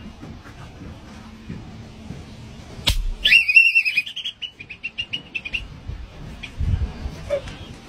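A sharp snap, then a high whistling tone for under a second that breaks into a quick run of short chirps at the same pitch. A dull thump follows near the end.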